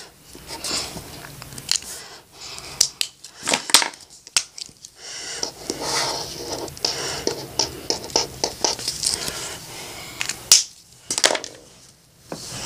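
Felt-tip marker drawing on paper: a run of quick, irregular scratchy strokes, with a sharp knock about ten and a half seconds in.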